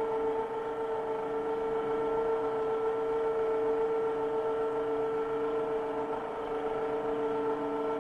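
A steady machine hum: a constant pitched drone with several tones, unchanging in level.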